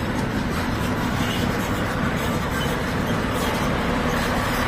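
Concrete mixer truck's diesel engine running steadily, a low hum under a broad noise.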